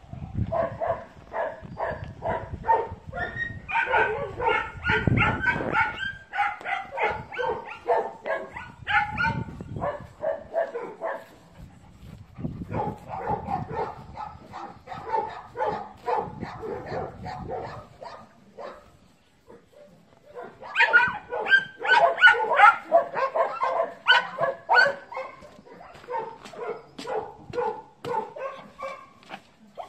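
Dogs barking over and over in quick succession, with a short lull about two-thirds of the way through before loud barking starts again.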